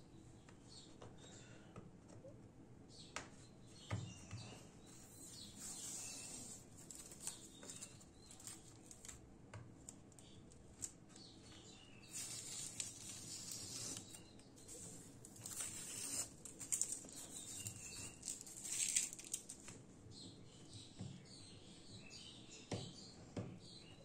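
Masking tape being peeled off the edges of a sheet of watercolour paper: several short, hissing tearing stretches with a few small clicks, thickest about halfway through.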